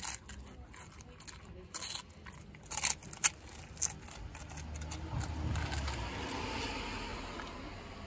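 A husky crunching and chewing a wafer ice-cream cone, with a series of sharp crisp cracks in the first four seconds. A broad rush of noise then swells and fades away near the end.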